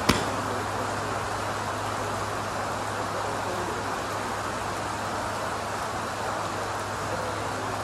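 A forged Mizuno MP-33 blade iron strikes a golf ball off a range mat with one sharp crack just after the start. Steady rain hisses throughout.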